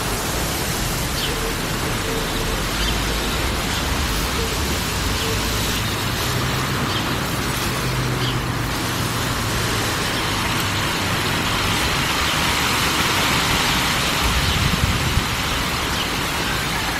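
A steady, even hiss with no distinct events, and a faint low hum partway through.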